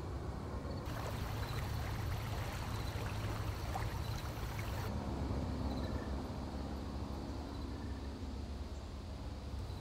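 A shallow creek running and trickling over rocks for about four seconds, starting about a second in and cutting off sharply, over a steady low rumble.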